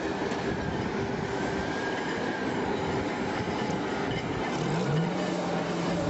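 Cable-logging yarder running while its carriage travels along the skyline cable: a steady mechanical rumble and whir with faint high whines. Near the end a lower note rises and then holds steady.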